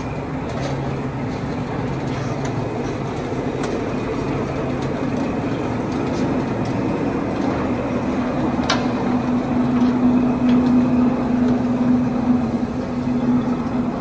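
Steelmaster TDF 1.6 sixteen-station roll former running, its 3 kW motor and rows of forming rollers humming steadily as a galvanised steel sheet is fed through and rolled into a 25 mm TDF duct flange. The hum grows louder in the second half, with a few sharp metallic clicks, the clearest about nine seconds in.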